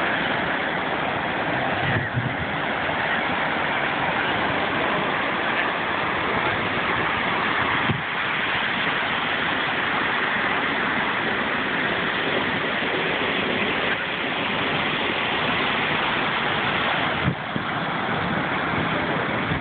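Ocean surf breaking and washing up on a sandy beach: a steady rushing noise.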